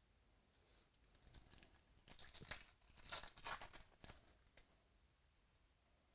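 A foil wrapper of a 2018 Donruss Baseball card pack being torn open and crinkled by hand, a run of crackling tears and rustles from about one to four seconds in.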